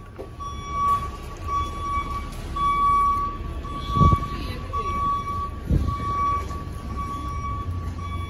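An electronic warning beep sounds about once a second, each beep the same steady pitch, over a low outdoor rumble. Two dull thumps come about four and six seconds in.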